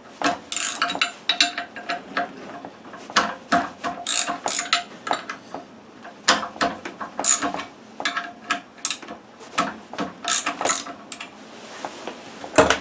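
Quarter-inch-drive socket ratchet clicking in short, irregular runs as the recoil hub bolts are turned out. A single sharp knock near the end is the loudest sound.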